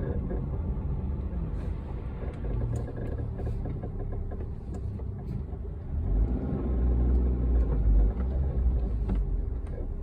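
A 2005 Toyota Corolla running, a low rumble that swells about six seconds in and eases near the end, with faint short ticks scattered above it.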